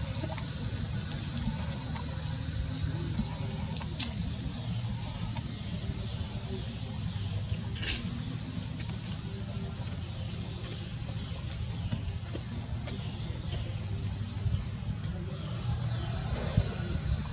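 Steady high-pitched drone of insects holding one unbroken tone, over a low background rumble, with two faint ticks about four and eight seconds in.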